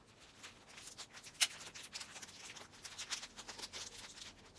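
Hands handling a plastic doll stand and unwrapping a small item from its packaging: light rustling and scattered small clicks, with one sharp click about a second and a half in.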